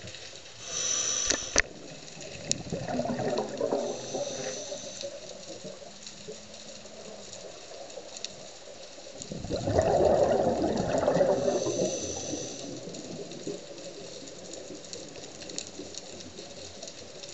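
Scuba diver's regulator breathing underwater: bursts of exhaled bubbles, loudest about ten seconds in, with short hisses of inhaled air between them. A couple of sharp clicks about a second and a half in.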